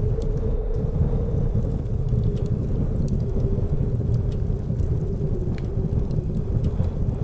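Blizzard wind ambience: a steady low rumble with a wavering, whistling tone, over the scattered faint crackles and pops of a wood fire.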